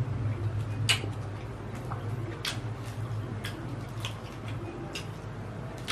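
Close-miked chewing and eating of chicken satay: scattered wet mouth clicks and smacks, with a steady low hum underneath.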